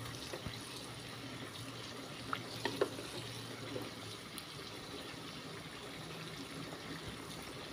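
Pot of chicken curry with coconut milk simmering with a faint steady bubbling, stirred with a wooden spatula that gives a few light knocks against the pot about two to three seconds in.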